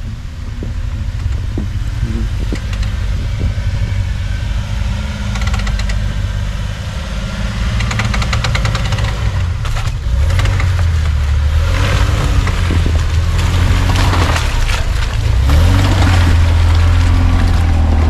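4x4 off-road vehicle engines running close by on a snowy dirt track, with a deep rumble that grows louder about ten seconds in and again near the end. Tyres crunch and grind through the snow and mud over it.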